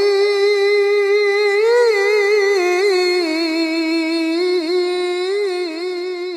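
A single voice chanting in an Arabic religious style, holding long, wavering notes with ornamented melodic turns, unaccompanied, growing quieter near the end.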